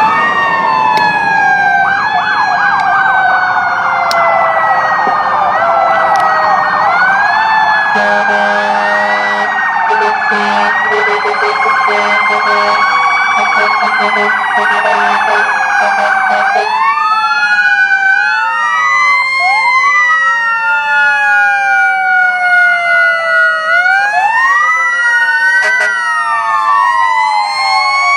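Several emergency vehicle sirens wailing at once, their rising and falling tones overlapping and out of step. A steady low tone sounds on and off for several seconds near the middle, over the sirens.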